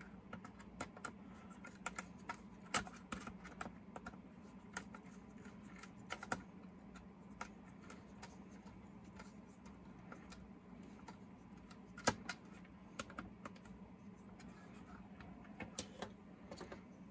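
Small irregular clicks and taps of hands and a screwdriver fitting screws into a plastic HO-scale model locomotive body, with one sharper click past the middle.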